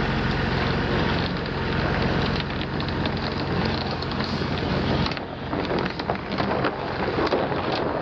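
Heavy ground-protection mats scraping and knocking as they are dragged and lifted on asphalt, over a heavy vehicle's engine running. About five seconds in the engine hum fades and the irregular scrapes and knocks of the mats stand out.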